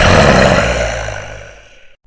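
Loud, rough sound effect that starts suddenly and fades away over about two seconds, cuts off, then starts again the same way: one short effect repeated in a loop.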